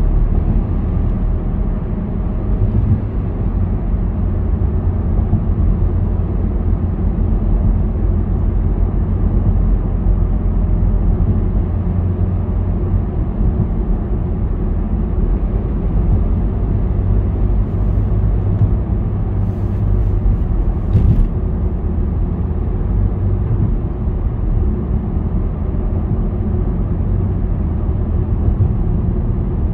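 Car driving through a road tunnel, heard from inside the cabin: a steady low rumble of tyre and engine noise.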